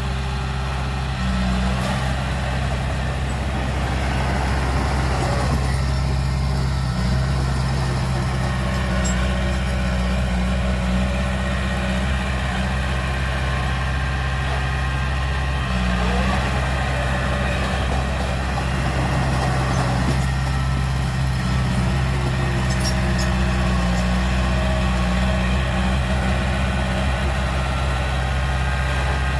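Heavy diesel engine running steadily at a constant pitch, a low drone with no revving.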